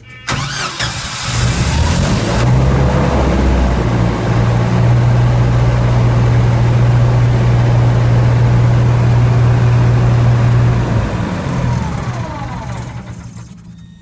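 Gillette 40 kW standby generator's engine cranking and starting about half a second in, running steadily at its rated 1800 rpm, then shutting down and winding down over the last few seconds. It started only after the controller was banged on, which the owner takes to mean something is loose inside the controller.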